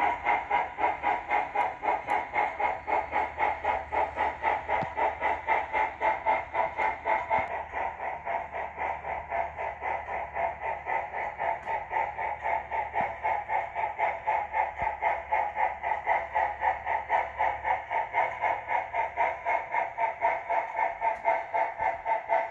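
Onboard WOW sound decoder in an On3 model steam locomotive, playing a steady, even rhythm of steam exhaust chuffs through the model's small speaker as the locomotive pulls its train.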